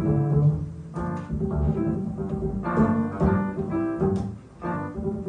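Upright double bass played pizzicato in a jazz solo: a run of plucked notes, with a short pause about four and a half seconds in.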